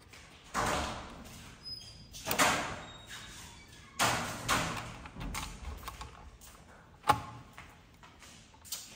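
Hands handling the parts of an Intel NUC mini PC during disassembly or reassembly. There are several sharp knocks and clatters, each dying away, with the sharpest click a little after seven seconds in.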